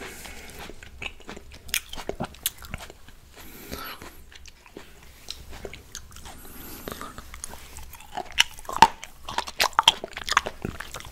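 Close-miked chewing of fresh red grapes: wet crunches and mouth clicks, with a louder run of crunches about eight and a half to ten seconds in.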